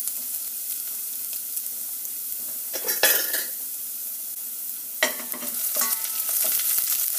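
Minced garlic sizzling steadily in hot olive oil in a stainless steel saucepan, with louder scrapes from a wooden spoon stirring it about three and five seconds in.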